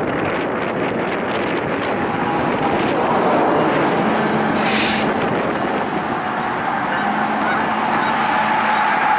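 Geese honking over the steady running noise of a diesel-hauled freight train rolling slowly past.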